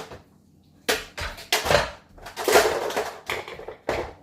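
Plastic dog food-puzzle toy being worked by a puppy: a string of knocks and clatters, with a longer scrape of pieces sliding about halfway through.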